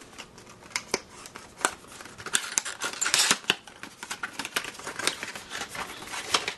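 Hands handling an opened cardboard product box, its flaps and the plastic packing tray inside scraping and crinkling: a run of sharp clicks and rustles, thickest around the middle.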